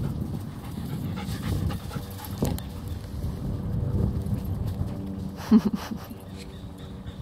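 Dogs playing and panting, with one short bark about five and a half seconds in.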